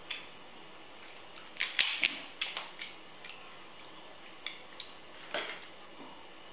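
Cooked crab shell being cracked and pulled apart by hand: a quick cluster of sharp cracks about two seconds in, followed by scattered softer cracks and clicks.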